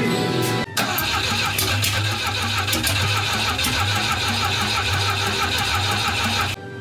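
Rebuilt Volvo B20 four-cylinder engine with SU carburettors starting and running at its first start, heard from under the car. It comes in suddenly about a second in and drops away sharply near the end.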